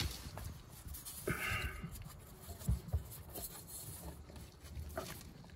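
Faint small knocks and handling noises from a hand working the freewheel lever on a Tramper mobility scooter's motor brake, with a brief rustle about a second and a half in.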